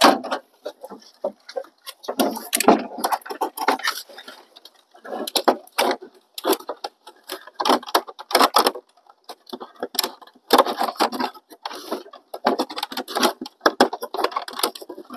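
Irregular clicking, tapping and rattling of hands handling hard parts as a part is worked and squeezed into place on a car, in quick clusters with short pauses.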